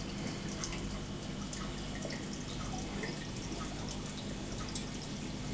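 Aquarium air bubbles rising and popping at the water's surface, a steady stream of small irregular plops and trickling water over a steady low hum.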